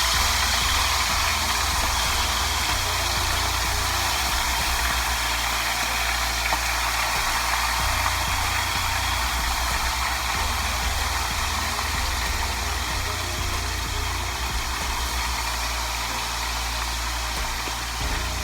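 Chicken wings frying in hot cooking oil: a steady sizzling hiss over a low hum.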